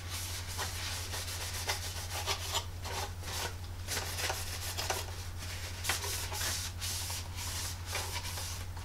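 A cloth towel, lightly dampened with airbrush cleaner, is rubbed quickly back and forth over a sanded plastic model aircraft fuselage to wipe off the filler dust, making a run of rapid, irregular rubbing strokes. A steady low hum runs underneath.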